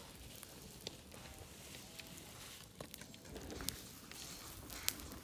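Faint outdoor background with scattered light clicks and crackles.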